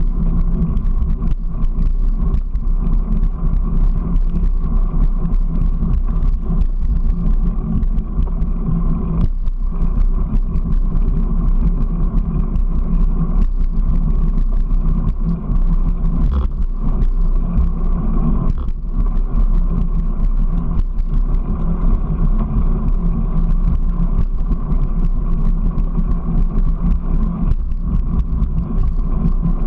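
Steady rumble of a small vehicle riding along a concrete path, with continuous road and wind noise on the camera.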